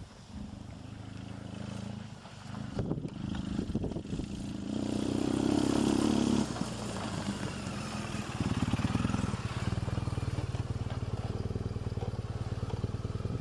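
Adventure motorcycle engine running as the bike climbs a gravel track, growing louder as it comes close and cutting off suddenly about six and a half seconds in. From about eight seconds a motorcycle engine is heard again, running steadily.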